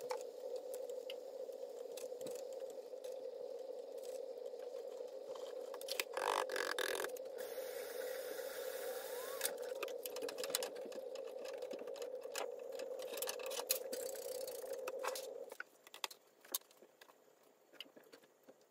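A gas stove burner running with a steady hum under a frying pan, cut off suddenly about fifteen seconds in. Over it come clinks and scrapes of kitchen utensils and a mixing bowl, with a louder scrape about six seconds in.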